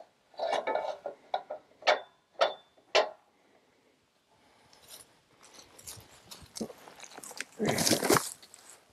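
Wood knocks and clacks, a few sharp ones and one with a brief metallic ring. Then scraping builds to a heavy thud about eight seconds in, as a fresh-cut slab is slid off the log.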